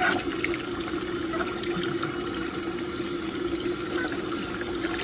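Bathtub faucet running steadily, its stream pouring onto a capuchin monkey's face and splashing into the filling bathwater, with a low steady hum underneath.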